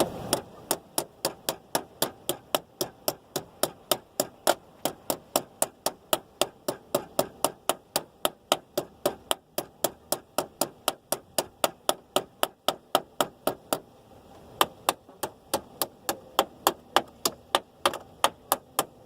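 Small hammer tapping a battery cable clamp down onto the negative post, which is a tight fit: a steady run of sharp taps about four a second, then a short pause and more uneven taps near the end.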